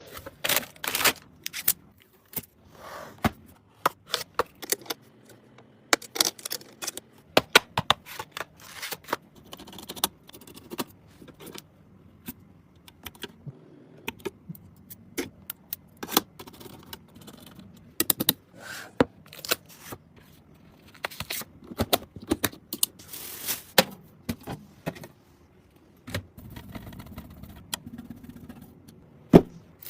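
Hands handling PC parts and fittings during a computer build: an irregular string of sharp clicks, taps and scrapes, like parts being set down, clipped in and screwed.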